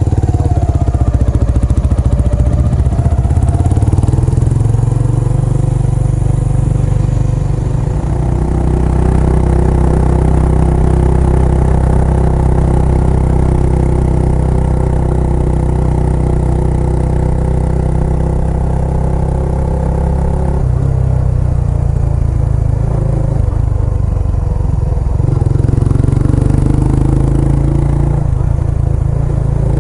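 Kawasaki Estrella's air-cooled single-cylinder engine running through an aftermarket Yamato muffler while riding. It holds a steady note, changing pitch about 8 seconds in and again about 21 seconds in.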